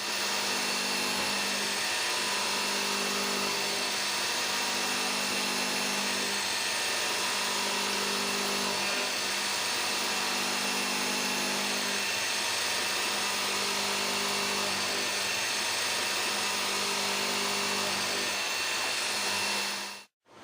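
A CNC Swiss-type lathe running through a machining cycle: a steady hiss with a low hum underneath. The hum and a higher whine come and go every few seconds as the spindles and tools change.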